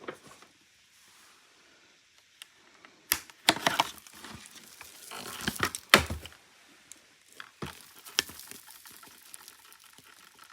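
Plastic parts of a Hoover vacuum being handled and knocked, with scattered sharp knocks and clattering rustles, while the unit is shaken to get debris out of a suspected clog; the motor is off.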